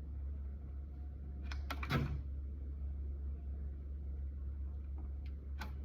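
Electric typewriter switched on, with a steady low hum, and a few short clicks from its keys and mechanism about a second and a half in, with a brief sliding sound right after and a few more clicks near the end.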